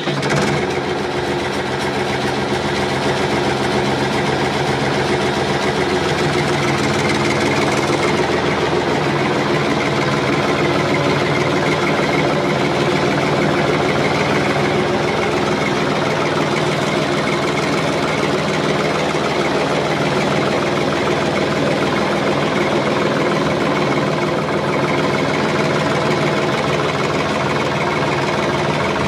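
Combine harvester's diesel engine running steadily, a continuous mechanical drone. Its low tone shifts slightly about six seconds in.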